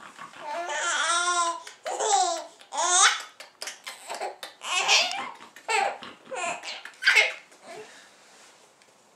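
Infant laughing in a string of bursts: a long wavering laugh about half a second in, then shorter peals through the next several seconds.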